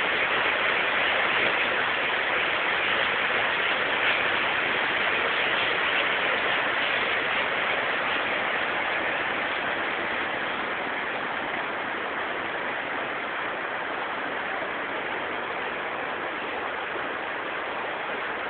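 Mountain stream rushing over a small waterfall and rocky rapids, a steady loud noise of water that grows a little quieter toward the end.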